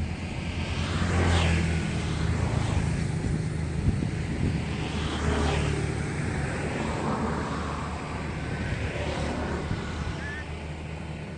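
Kubota U50 excavator's diesel engine running steadily, swelling louder under hydraulic load about a second in and again around five seconds in, with a few faint short squeaks near the end.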